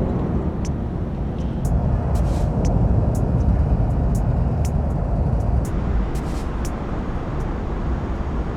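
Diffuse city ambience: a steady low rumble of distant road traffic, with scattered faint high-pitched clicks.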